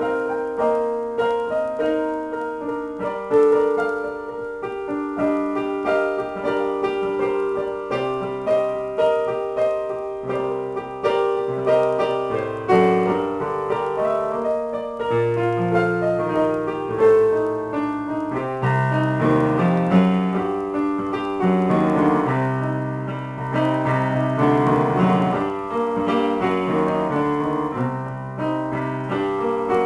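Yamaha digital keyboard played with a piano sound, an improvised piece of melody over chords. Deeper bass notes come in about halfway through and the playing grows fuller.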